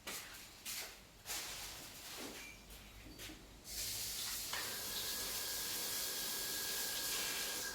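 Food sizzling in hot oil in a pan: a steady hiss that starts suddenly about halfway in, after a few scattered knocks and rustles.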